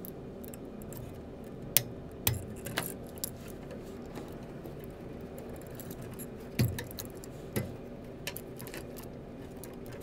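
A handful of short metallic clicks and taps, spaced a second or more apart, from a flathead screwdriver pressing the release pins on the back of a wall outlet and its push-in wires being pulled free. A faint steady hum lies underneath.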